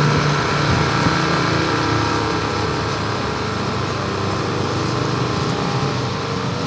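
A small engine or motor running steadily, a constant hum that holds the same pitch.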